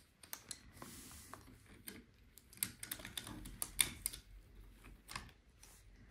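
Irregular light clicks and taps of wooden Brio toy train pieces being handled and set down, with a few louder knocks near the middle.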